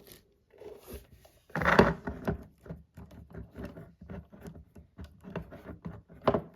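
Handling noises from unboxing a USB charging station: rubbing, scraping and a run of light knocks as the box and charger are handled, with louder knocks about two seconds in and again near the end.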